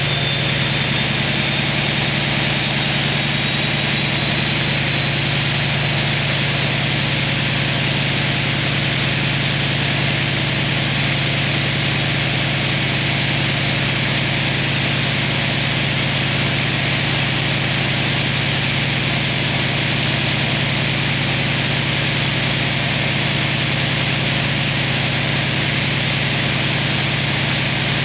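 CP 1900-class diesel-electric locomotive's engine running steadily on test after heavy maintenance, with a high thin whine over the engine note that rises slightly in pitch over the first few seconds and then holds steady.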